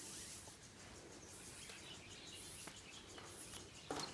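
Faint outdoor background with distant birds chirping, and soft rustling of paracord strands being pulled through the knot's loops.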